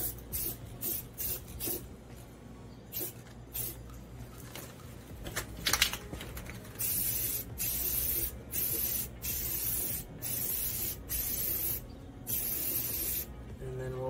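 Aerosol spray-paint can hissing in repeated bursts as a thin coat goes onto a valve cover: short puffs in the first few seconds, then a run of longer sprays of about a second each in the second half. One sharp click comes about six seconds in.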